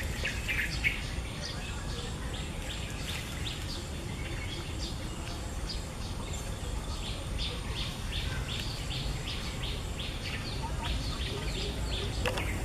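Small birds chirping in short high notes, with a quick run of repeated chirps, about three a second, in the middle, over a steady low background rumble.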